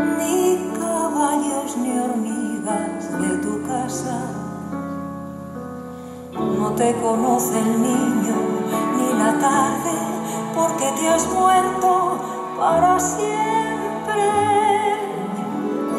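Instrumental music with sustained notes, swelling sharply louder about six seconds in.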